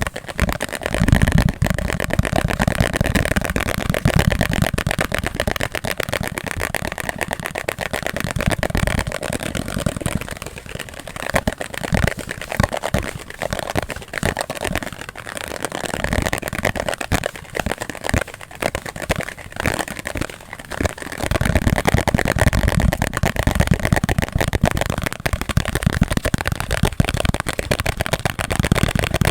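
Fast, aggressive ASMR tapping: a dense, unbroken stream of very rapid taps and clicks, with heavier low thumping taps near the start and again through the last third.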